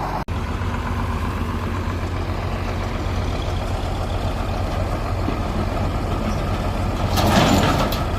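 An engine idling steadily, with a short louder noisy clatter near the end.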